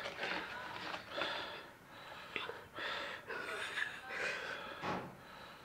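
A woman's soft, breathy laughter in a run of short bursts.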